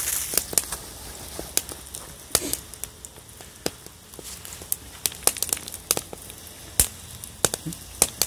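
Wood-burning hobo stove with bratwursts frying in a pan on top: irregular sharp crackles and pops, a few each second.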